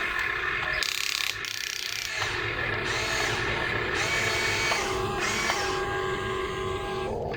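Small electric gear motors of a toy RC excavator or dump truck running with a whirring, ratcheting grind, dipping briefly about a second in.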